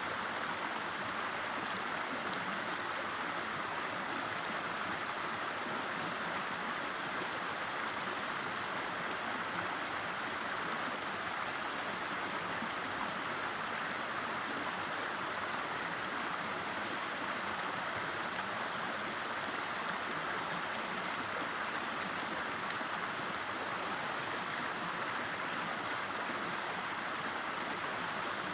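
A river running: steady, even rushing and babbling of flowing water.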